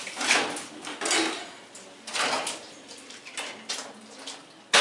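Sheet metal clanking and scraping in irregular knocks as an old furnace cabinet is tilted and shifted by hand.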